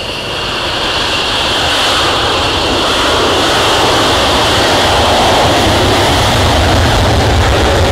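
F-16 fighter jets taxiing past with engines running: a steady high-pitched jet whine over a broad roar that grows louder as the jets come by.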